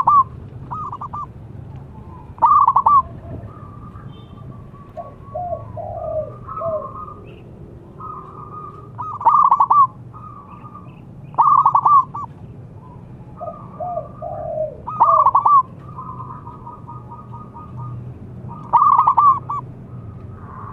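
Zebra dove cooing: its staccato rolling song repeats in loud bursts about six times, every two to four seconds, with softer rolling trills and lower falling notes between them.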